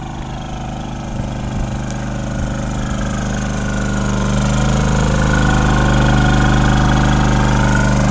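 Honda EU2000i inverter generator, a single-cylinder four-stroke, running steadily on eco mode. Its hum grows louder over the first six seconds, then holds.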